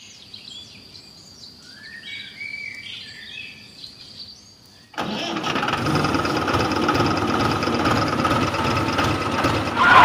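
Birds chirping, then about five seconds in a loud, steady, engine-like running sound starts abruptly as the homemade mini tractor drives, with a brief louder burst near the end.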